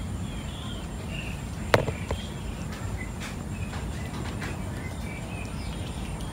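A kitten crunching dry kibble: a few scattered crisp clicks, one sharper a little under two seconds in, over steady outdoor background noise with faint bird chirps.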